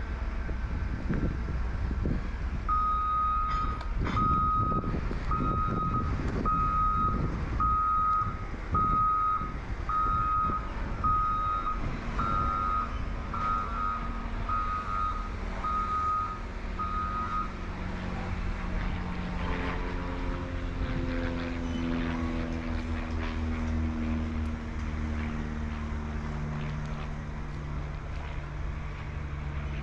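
Reversing alarm on construction machinery beeping at about one beep a second, some thirteen beeps, over a steady low rumble. Near two-thirds of the way in, an engine drone sets in, its pitch slowly falling.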